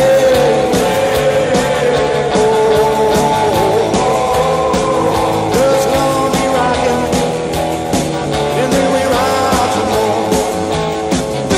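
Rock and roll song playing, with a steady drum beat and singing.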